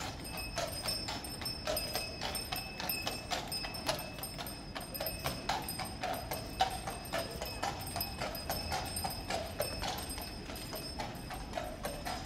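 A carriage horse's hooves clip-clopping steadily on an asphalt street, several strikes a second.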